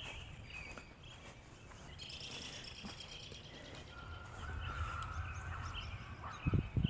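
Distant thunder, a low rumble that swells about two-thirds of the way through, with birds chirping over it.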